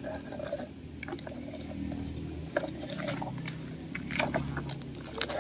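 Irregular crunching, scraping and clicks of a plastic toy truck on dry dirt and pebbles, over a low steady hum.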